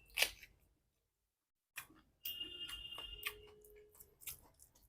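Eating sounds: a few sharp clicks and wet smacks of mouth and chewing, clustered in the second half, with a brief faint hum in the middle.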